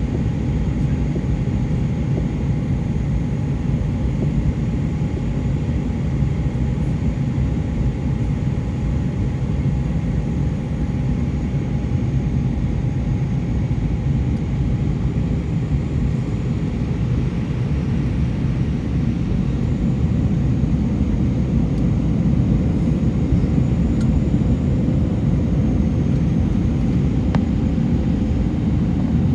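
Steady low cabin roar of an Airbus A320-232 descending to land, heard from a seat over the wing. Its IAE V2500 turbofan engines and the rushing air make a dense rumble with faint steady whining tones on top, growing a little louder in the last third.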